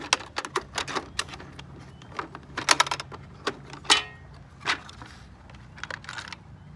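Irregular clicks and clatters of small plastic and metal parts being picked through by hand in a clear plastic parts organizer box of wire nuts and spare timer pins. The rattling is thickest a few seconds in and thins out toward the end.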